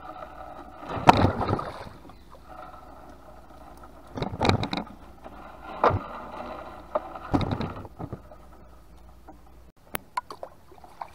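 Wet gill net being hauled by hand over the side of a small wooden boat, with water dripping and the net rustling. About four louder bursts of splashing and knocking against the hull come as armfuls of net come aboard, with a few sharp clicks near the end.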